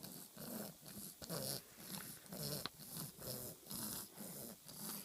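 Newborn baby's grunting, snuffly breaths, about two a second, each a short low grunt with a hiss of air: the congested breathing of a baby with a stuffy nose from a cold.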